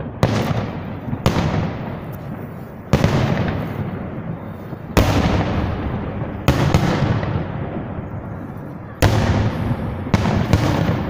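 Fireworks salute shells bursting one after another, about eight booms in quick succession, each trailing off in a long rolling echo.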